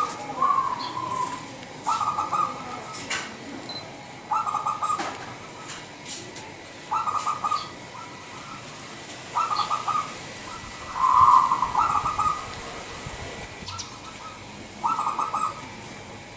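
Zebra dove (perkutut) singing: short phrases of rapid staccato coos, each under a second long, repeated about every two and a half seconds. One phrase near the middle is louder and longer.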